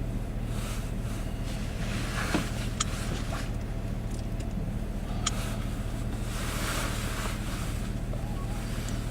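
A truck's engine runs with a steady low hum while gusts of wind blow against the vehicle and the microphone, swelling twice. Two sharp clicks sound in between.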